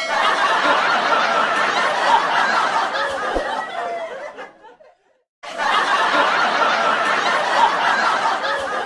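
Canned crowd laughter, a dense laugh track of many people laughing. It breaks off about four and a half seconds in and starts again half a second later, repeating the same stretch.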